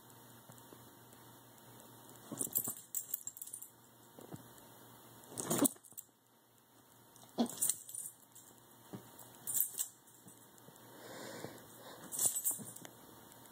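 Shih Tzu mix puppy playing on a couch, its shaking and scrambling making about five short bursts of jingling and rustling on a fleece blanket.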